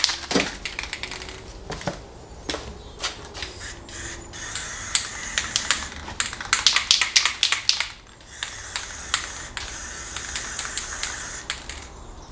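Red aerosol spray paint can with a snap-on Krylon Snap and Spray trigger handle, hissing in several bursts. Between the bursts come runs of rapid rattling clicks.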